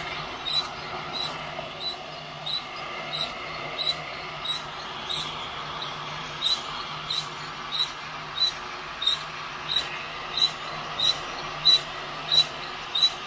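Drill-driven stainless flour-sifter roasting drum squeaking once per turn, about one and a half times a second and louder near the end, over the steady rush of the heat gun blowing into it.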